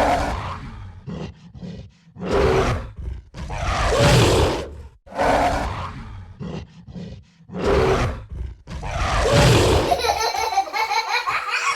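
Gorilla-like roaring: about six loud roars of about a second each, with short grunts between. Near the end a different sound with steady tones takes over.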